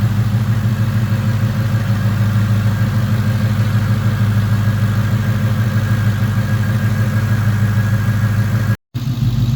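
Ford Coyote 5.0 V8 idling steadily at a calm 750 rpm, warmed up, with pretty much normal noises and no timing-chain chirp or rattle after the cam phaser sprockets were put back together straight. The sound cuts out for a split second near the end.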